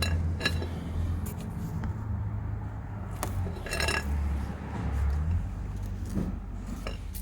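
Scattered metallic clinks and knocks with short ringing, a handful over several seconds, as the exhaust of a BMW E24 635CSi is jacked up to seat its rubber hanger mounts. A steady low hum runs underneath.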